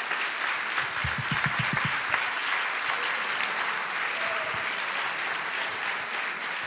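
A congregation applauding, a steady dense clapping. A quick run of low thumps comes about a second in.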